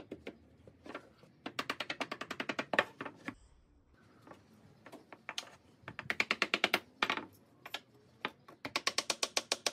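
Rapid, evenly spaced mechanical clicking, about a dozen clicks a second, in three runs of about a second each, with light handling knocks between them.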